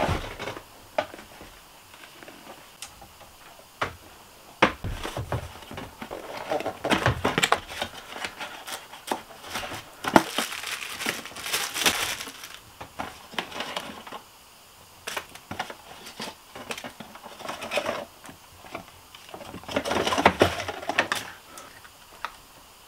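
Plastic packaging crinkling and rustling in irregular bursts as a new camping lantern is unwrapped by hand, mixed with small knocks and clicks of handling.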